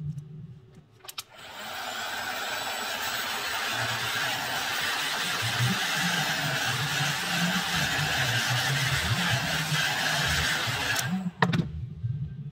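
Heat gun running, a steady rush of hot air blown onto a smartphone's front screen; it starts about a second in and cuts off sharply near the end.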